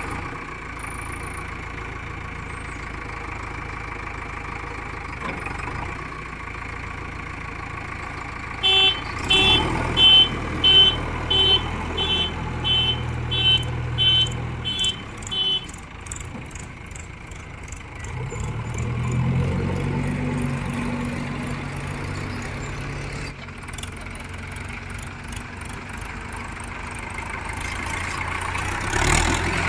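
Diesel engine of a backhoe loader or tractor running steadily. A run of about a dozen short, evenly spaced beeps comes about nine seconds in, and later the engine revs up for a few seconds, then settles again.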